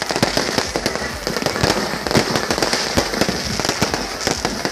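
Fireworks going off in a dense, continuous barrage of sharp pops and bangs, many a second.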